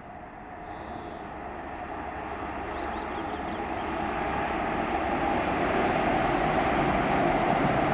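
A train approaching, its running noise growing steadily louder, with a steady hum that strengthens toward the end.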